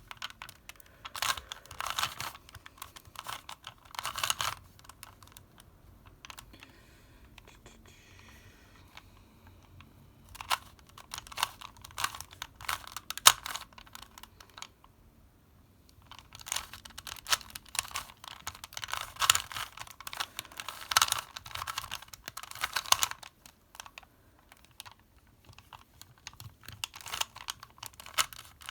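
Plastic Rubik's cube being turned by hand: rapid clicking and clacking of the layers in bursts of a few seconds, with short pauses between.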